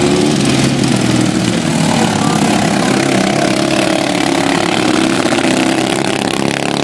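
Engines of racing riding lawn mowers running hard as several mowers circle a dirt track, a steady engine drone whose pitch dips and climbs again in the middle as one mower comes round and heads toward the fence.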